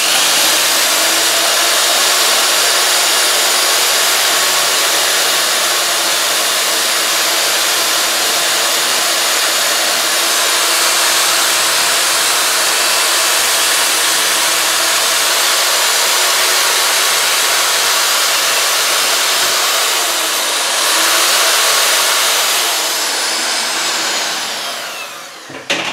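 Electric drill spinning a small wire cup brush against the tin-plate cab of a toy train, scouring off rust: a steady whine with a scratchy hiss. It slows and picks up again about twenty seconds in, then winds down near the end as the brush is lifted clear.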